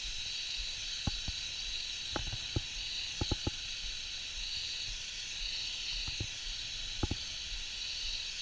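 Water mist spraying out of a nozzle with a steady hiss, with a few faint ticks scattered through it.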